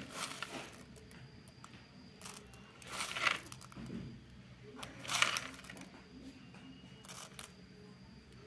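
A hand stirring through a plastic basket of small cylindrical metal airgun slugs, the pellets rattling and clinking against each other in four short bursts.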